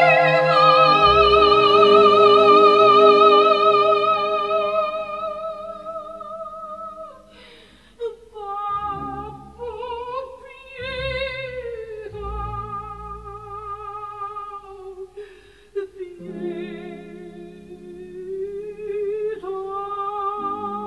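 Music: a solo voice singing long, held notes with a wide vibrato over sustained low accompaniment. It grows softer about seven seconds in and carries on more quietly.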